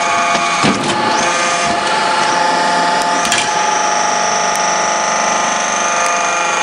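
Metal-scrap briquetting press running: a steady mechanical whine with several held tones over a rushing machine noise. Short knocks come about a second in and again a little past three seconds.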